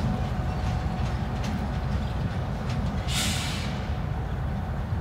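GE GEU20 diesel-electric locomotive rumbling low and steady as it moves away along the track, with a few faint clicks from the wheels and a short hiss about three seconds in.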